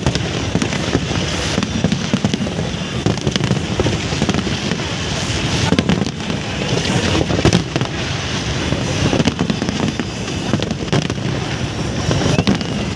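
Fireworks display: a continuous, overlapping barrage of bangs and crackling bursts.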